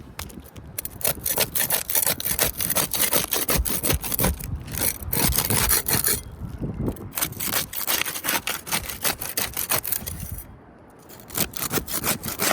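Rapid, repeated scraping and rasping as a tool is worked back and forth under asphalt roof shingles to break their seal and free a 3-tab shingle, with a few brief pauses between runs of strokes.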